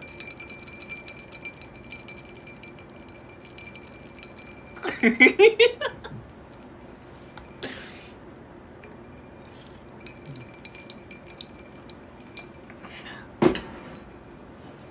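Bowl of Hongcho red vinegar drink handled and sipped close to a phone microphone for ASMR: a stream of small clinks and clicks, with a short vocal sound about five seconds in.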